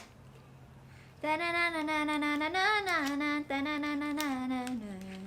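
A woman's voice humming a short tune in long held notes, with one swoop in pitch midway and a lower final note. A brief click comes right at the start.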